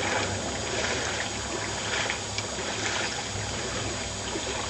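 Boots wading through boot-deep floodwater, splashing and sloshing in irregular steps about a second apart.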